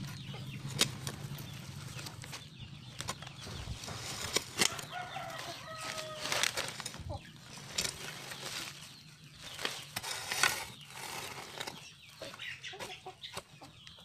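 Soil being scraped and pushed into a small hole by hand and with a hoe, filling in a grave, with rustling and a few sharp knocks.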